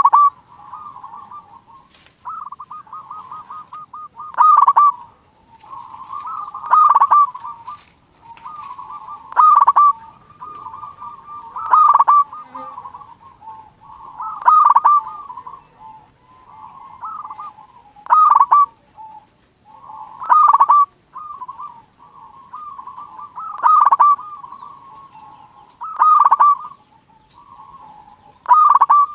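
Zebra dove (perkutut) cooing without a break: a run of soft, rolling coos, topped every two to three seconds by a loud ringing coo. This is a bird in full, active song (gacor).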